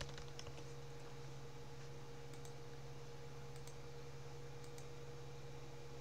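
A few faint computer mouse clicks and key presses, spaced irregularly, over a steady low hum.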